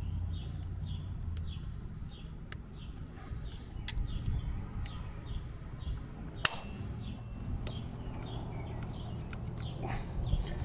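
Sharp metallic clicks and knocks as locking pliers clamped on a screw work at pulling a stuck power steering input shaft seal, the loudest about six and a half seconds in. Birds chirp repeatedly throughout over a low steady hum.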